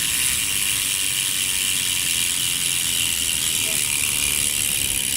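Hope cassette hub on a bicycle's rear wheel freewheeling, its pawls clicking on the ratchet so fast that they merge into a steady, high-pitched buzz.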